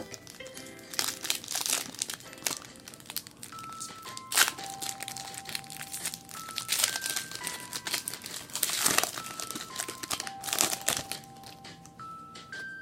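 Trading-card pack wrapper being torn open and crinkled in the hands: a run of irregular crackly rustles. Faint background music with a simple melody of held notes plays underneath.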